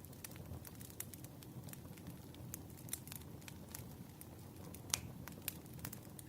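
Campfire crackling: irregular sharp pops and snaps over a soft low rumble of burning, the loudest pop about five seconds in.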